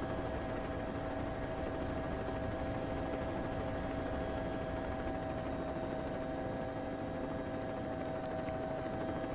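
Steady engine drone under an even hiss, its pitch unchanging.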